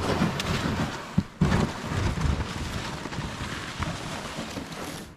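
Wind buffeting the microphone: a steady rushing hiss with an uneven low rumble. It cuts in and out abruptly, with a brief drop about a second and a half in.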